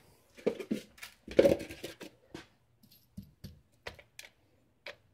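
Irregular light clicks and clinks of small metal parts as steel tumbling pins are picked out of .22LR brass cases with a magnet and a plastic tub. There is a busier clatter about a second and a half in, then scattered single ticks.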